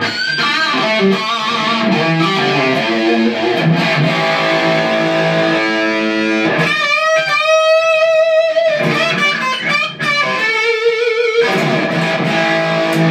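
Electric guitar, a 2012 Gibson Les Paul Standard played through a Marshall JCM1 1-watt valve amp head, playing lead lines and riffs. Past the middle come two long held notes with wide vibrato.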